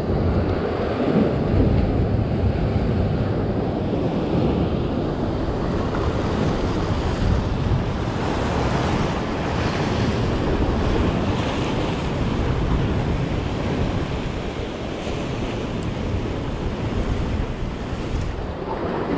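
Sea waves washing against a rocky shore, a steady surging noise, with wind rumbling on the microphone.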